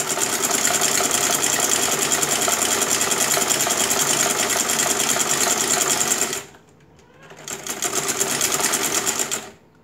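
Old black sewing machine running fast, stitching a straight row of gathering stitches through fabric. It stops about six and a half seconds in, then runs again for about two seconds and stops.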